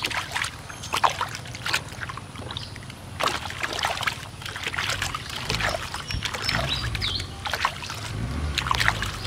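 Soapy water splashing and sloshing in a plastic basin as hands scrub a baby monkey, in short irregular splashes.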